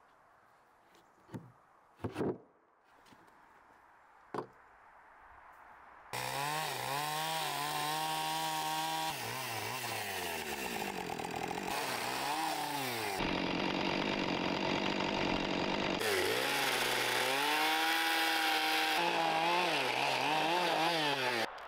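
A few light knocks, then a gas chainsaw comes in loud about six seconds in, running at full throttle while cutting into a wooden slab to flatten the back of a bench. Its pitch sags as the chain bites into the wood and climbs again as it eases off, several times over. It cuts off just before the end.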